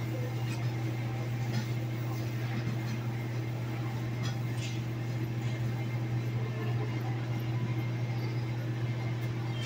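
A commercial rotisserie oven and the overhead kitchen exhaust running with a steady low hum and a fainter higher drone, with a few faint clicks.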